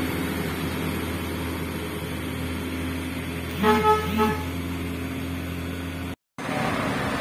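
Heavy truck's diesel engine pulling up a hill, a steady low drone. About halfway through, a vehicle horn gives a few short toots. The sound drops out for a moment near the end.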